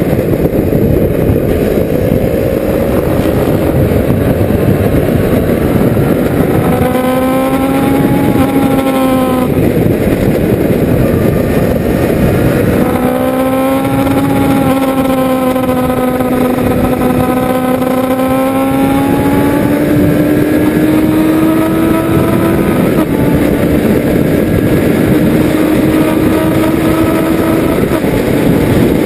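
Honda CB500 motorcycle engine running hard on a track lap, under a heavy rush of wind on the microphone. The engine note rises and falls with the throttle, standing out most clearly from about a quarter of the way in and through the middle.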